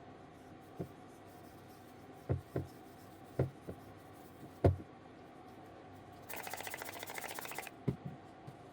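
Several short handling knocks, then a spray bottle sprays for about a second and a half with a fast sputtering rattle, followed by two more knocks.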